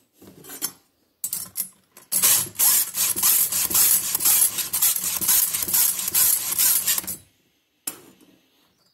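Round chainsaw file in a Stihl file holder, guided by a Stihl FF1 filing guide, rasping back and forth in quick strokes across a saw chain cutter for about five seconds as the tooth is sharpened. Short metal clicks and scrapes come before it, and a single click comes near the end.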